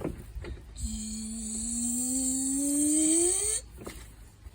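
A person's mouth-made sound effect for pumping gas: one long buzzing hum, rising steadily in pitch and growing louder for almost three seconds before it cuts off.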